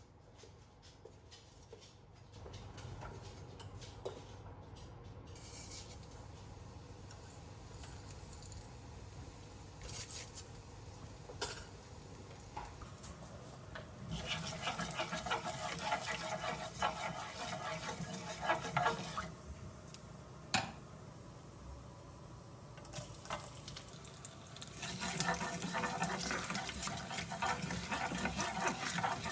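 Kitchen cooking sounds: scattered clinks of utensils and cookware, with two spells of hissing, crackling noise, one about halfway in and one near the end.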